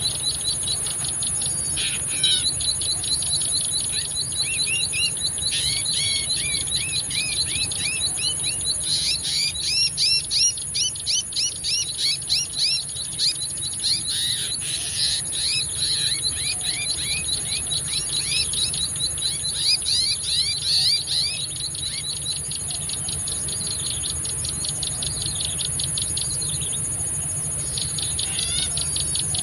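Small birds calling in long runs of rapid, repeated chirps and short down-slurred notes, busiest through the middle, over a steady high insect drone.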